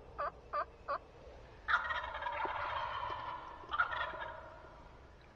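Wild turkey tom gobbling twice: a loud rattling gobble about a second and a half in, and another near four seconds that fades out. Three short yelping notes come before the first gobble.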